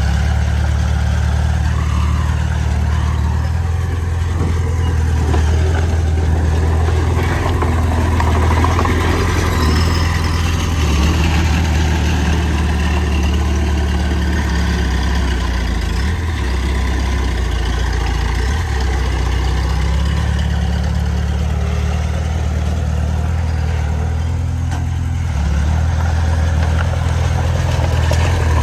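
Bulldozer's heavy diesel engine running steadily, its low drone changing pitch and load a few times, about halfway through and again near the end.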